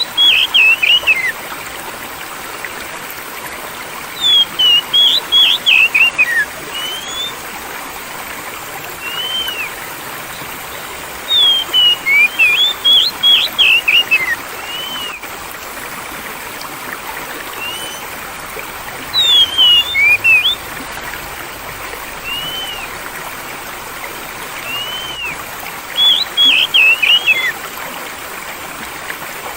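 Steady sound of flowing water, with a songbird breaking in about every six to seven seconds with a quick burst of loud, high chirping notes. Single soft whistled notes come between the bursts.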